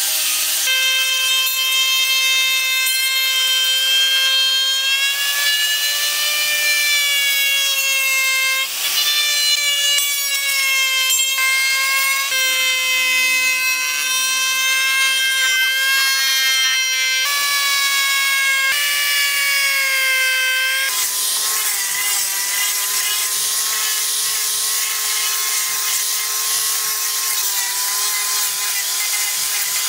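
Electric angle grinder with a sanding disc and an electric router working wood: a steady high motor whine over the hiss of abrasive and cutter on the wood. The pitch shifts abruptly at several cuts, and in the last third it is lower and hissier.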